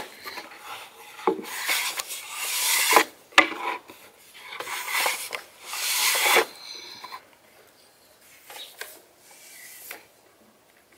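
Long, thin wooden rolling pin wrapped in thin dough, rolled back and forth under the palms on a floured wooden board: a rasping rub in two long swelling strokes, with a couple of sharp knocks. The rubbing turns much softer and sparser after about six seconds.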